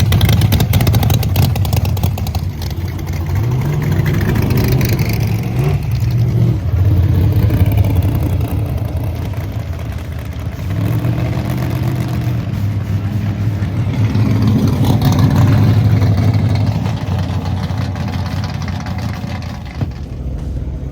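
Drag cars' engines running loud and revving, the pitch climbing and falling several times as the sound swells and fades.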